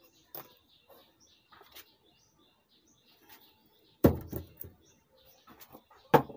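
Two sharp knocks on a wooden workbench, the first about four seconds in with a few lighter clicks after it and the second near the end, as a small mains transformer is moved and picked up. Faint bird chirps in the background.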